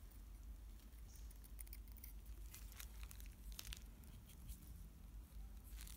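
Faint scraping and small scratchy clicks of a craft knife blade scraping at the eye opening of a 3D-printed resin doll head, shaving away leftover support notches to smooth the edge.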